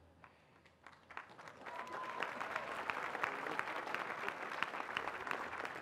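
Large crowd applauding: the clapping starts about a second in and quickly builds to a steady, dense patter of many hands.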